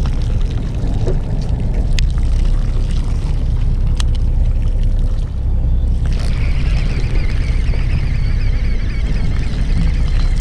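Boat engine running with a steady low rumble, with a few sharp clicks and, from about six seconds in, an added steady hiss.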